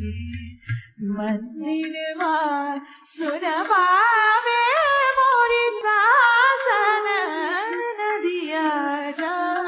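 A high voice singing a slow melody that starts about a second in, its pitch bending and wavering on long held notes.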